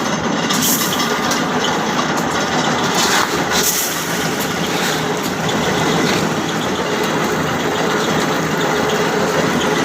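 A heavy engine running steadily under load, with a few brief hissing flares over it.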